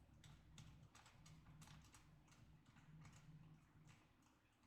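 Near silence with faint, irregular small clicks as the third mounting screw is turned in.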